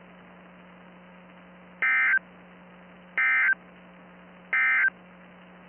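Three short bursts of digital data tones from a NOAA Weather Radio broadcast, each about a third of a second long and spaced about 1.3 s apart: the EAS/SAME end-of-message code that closes the weekly test alert. A faint steady low hum runs beneath them.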